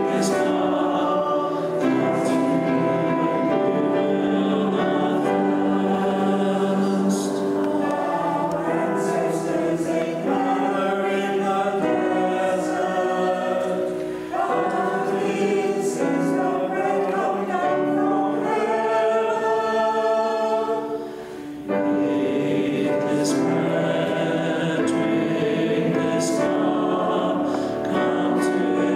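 A small group of men's and women's voices singing a slow communion hymn together, in long held notes, with short pauses between phrases, the clearest about two-thirds of the way through.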